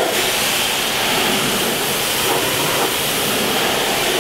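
Pressure washer jet spraying steadily onto a plastic boat seat, an even hiss of water blasting grime off the surface.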